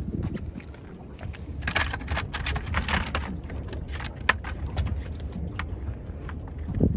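Wind buffeting the microphone as a steady low rumble, with a run of sharp clicks and crackles in the middle and a knock near the end.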